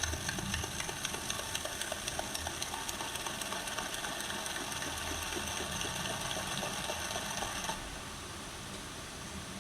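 Weird steady mechanical-sounding buzz, a rapid rattling tick over several constant tones, from a device after a call was disconnected. Its higher part cuts out about eight seconds in, leaving a duller hum.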